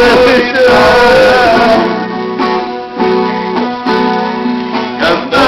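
Men singing a drawn-out final word over a strummed acoustic guitar, the voices stopping about two seconds in while the guitar keeps strumming chords alone.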